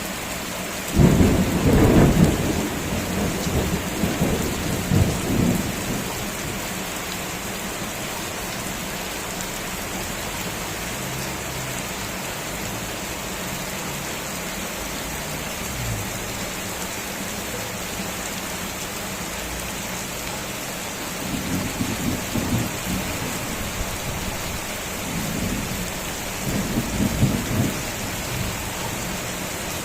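Steady rain with thunder rumbling through it: a loud, deep rumble starting about a second in and dying away over several seconds, then two fainter rumbles near the end.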